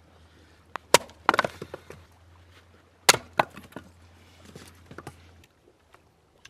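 Hatchet splitting firewood into kindling on a chopping stump: sharp strikes with the wood cracking apart, in two pairs about two seconds apart, followed by a few lighter knocks.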